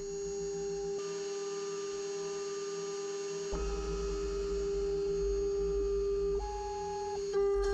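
Milo V1.5 desktop CNC mill's spindle spinning at 24,000 RPM with a steady whine, while the end mill moves above the aluminium plate rather than cutting. Fainter higher tones switch pitch several times as the machine moves.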